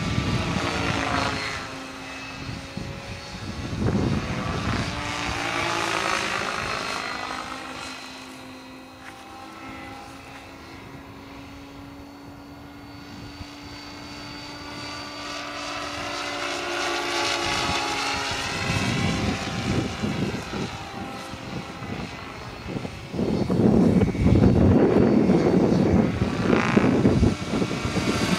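Henseleit TDR electric radio-controlled helicopter in flight: its Kontronik electric motor and 710 mm carbon rotor blades whine, the pitch gliding up and down as it passes back and forth. It fades to its quietest around the middle and is loudest a few seconds before the end.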